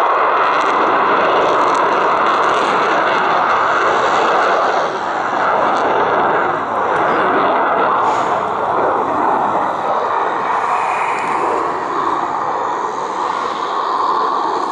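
MiG-29M2 fighter's twin Klimov RD-33MK turbofan engines running at high power in flight: a loud, steady jet rush with a faint high whine over it, easing slightly about five seconds in.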